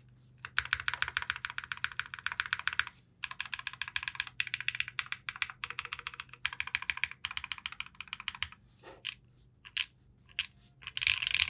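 Fast typing on a Boop Redux custom mechanical keyboard with an aluminum plate, factory-lubed Neo White switches and Keykobo Vibrato keycaps, built with no foam inside. The keystrokes are clacky, leaning to the deeper side. They come in several quick bursts with short pauses, thinning to a few scattered keys past the middle and picking up again near the end.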